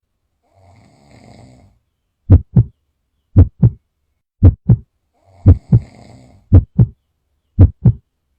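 Heartbeat sound effect: six loud double thumps, lub-dub, about one a second. Two faint snoring breaths come under it, one near the start and one in the middle.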